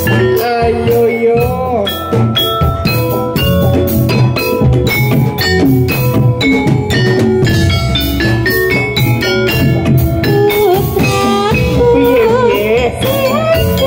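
Live Javanese jathilan gamelan music played loud: hand drums and struck metal keyed instruments keep a busy, steady beat, with a wavering melody line over them that grows stronger near the end.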